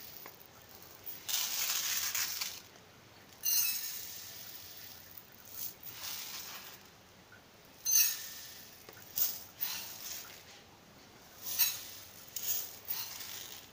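Granulated sugar poured onto amla pieces on a steel plate: a rustling hiss in a series of separate pours, a longer one about a second in and several shorter ones after.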